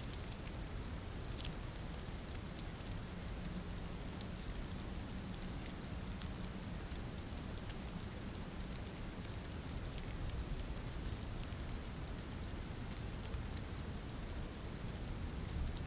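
Steady rainfall: an even hiss of falling rain with the small ticks of single drops scattered through it.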